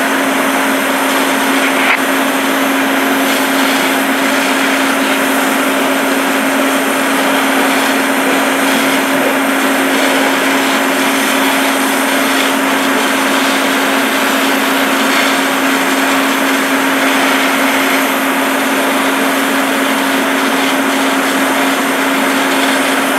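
An engine or motor running steadily with a constant hum over a loud, even hiss, unchanging throughout.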